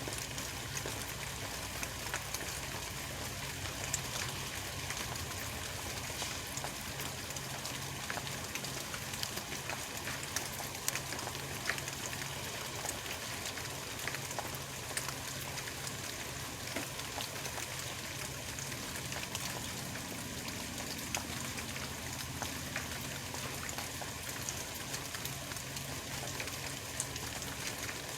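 Steady hiss with many small, light ticks, like rain falling on a surface, over a low, steady hum.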